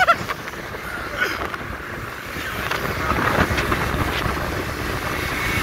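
Steady wind rush over the microphone while riding on a moving motorcycle, with the bike's running noise underneath.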